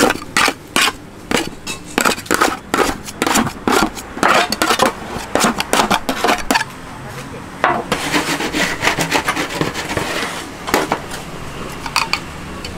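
Metal tray and scraper scraping and knocking on a wooden table as a mass of hot peanut brittle is worked, in quick repeated strokes of about three a second. The strokes stop for a moment about two-thirds of the way through, then give way to rougher scraping.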